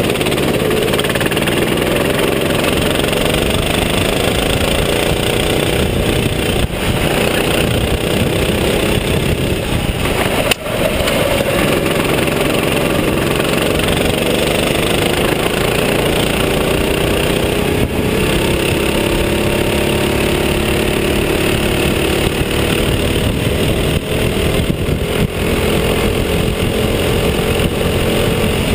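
Go-kart engine heard from the driver's seat, running hard with its pitch rising and falling as the kart speeds up and slows through the corners. The sound dips briefly about ten seconds in.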